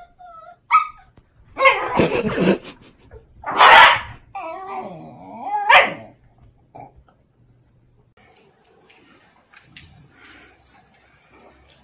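Two Shiba Inus barking and yelping at each other, with whiny cries that rise and fall, for about six seconds. After a short pause a steady high insect buzz takes over.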